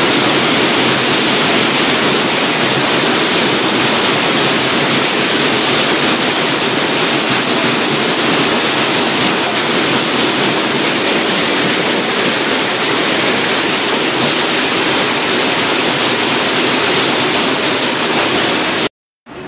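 Heavy hail pelting a paved street, a loud dense steady noise that stops abruptly near the end.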